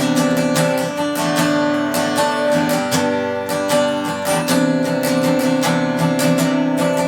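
Chibson J200, a Chinese copy of the Gibson J-200 jumbo steel-string acoustic guitar, strummed unplugged: chords played with a steady strumming rhythm.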